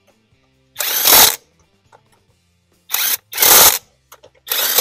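20-volt cordless 1/2-inch AlloyMan impact wrench hammering lug nuts tight through an 80 ft-lb torque stick, in several short bursts of about half a second each with pauses between them.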